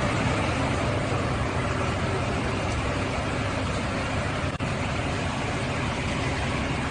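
Blue Rolls-Royce Cullinan SUV moving at walking pace: a steady rushing noise over a low engine hum, with a brief break about four and a half seconds in.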